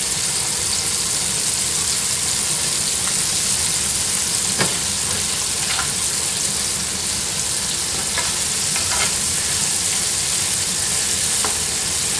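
Flour-dredged squirrel pieces frying in hot shortening in a skillet: a steady sizzle with a few scattered crackles, and one sharper knock about four and a half seconds in.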